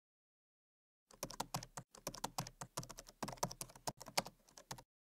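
Fingers typing fast on a laptop keyboard: an irregular run of key clicks that starts about a second in, pauses briefly, and stops just before the end.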